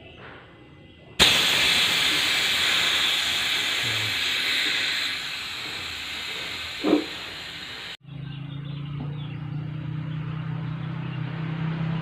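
LPG gas hissing out of a refrigerator's evaporator return pipe when a thumb is lifted off its end, blowing out old oil and dirt to flush the evaporator. The hiss starts suddenly about a second in and lasts about seven seconds, easing a little, with one brief knock near its end. After that comes the steady low hum of the external hermetic compressor pumping the gas.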